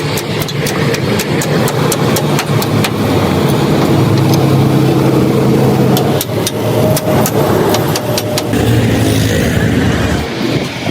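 Truck engine running steadily, with a quick series of sharp taps through the first few seconds and more around six seconds in.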